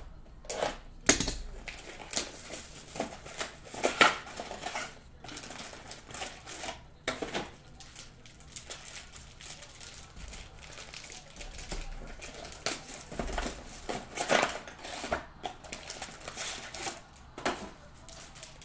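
Foil trading-card packs and their cardboard hobby box being handled: irregular crinkling of the pack wrappers, with sharp taps and clicks as the packs are pulled out and stacked.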